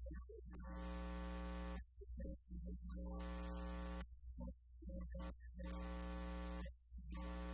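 Steady electrical buzz, a mains hum with a stack of overtones, that cuts out and back in irregularly. A single sharp click about two seconds in.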